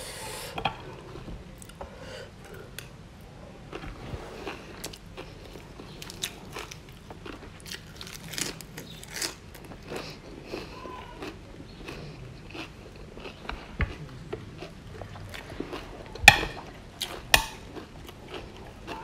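A person chewing and crunching mouthfuls of food wrapped in fresh lettuce leaves, with irregular small crunches and wet mouth sounds close to the microphone. Two sharper clicks come about three-quarters of the way in.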